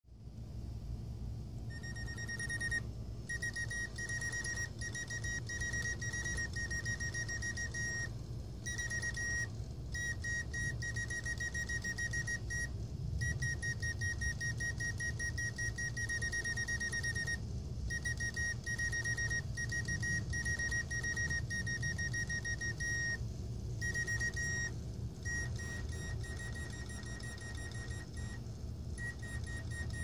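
Karl Griesbaum mechanical singing bird automaton's bellows-driven whistle starts singing about two seconds in. It warbles on one high pitch in long phrases broken by short pauses every few seconds, over the low steady whir of its clockwork movement.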